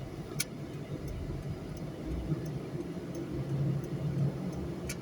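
Car driving on a highway, heard from inside: steady low engine and road rumble, with a sharp click about half a second in and another near the end.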